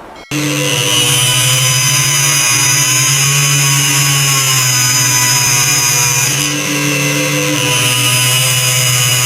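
A motor-driven machine running steadily at an even pitch, with a bright high whine over a low hum, starting abruptly just after the beginning.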